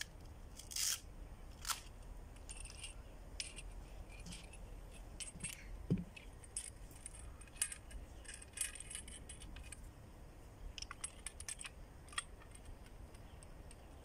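Handling of a loop antenna kit and its padded carry bag: irregular small clicks, clinks and rustles as the tuner and the coax loop are lifted out and handled, with a louder knock about six seconds in.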